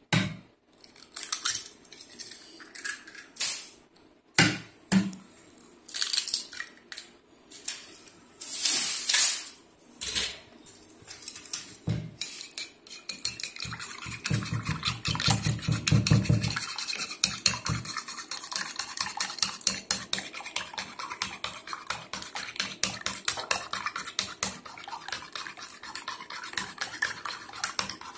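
Eggs being beaten with wooden chopsticks in a porcelain plate: a fast, steady clicking of the chopsticks against the plate, starting a little before halfway. Before that, scattered separate knocks and clatter of dishes on the board.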